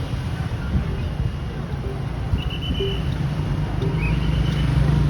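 Street traffic: a steady low vehicle rumble that grows slightly louder near the end, with a few short high-pitched tones in the middle.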